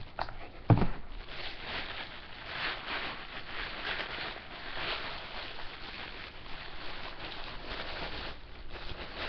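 White wrapping around a pair of new shoes rustling and crinkling unevenly as it is handled and unwrapped, with a sharp knock a little under a second in.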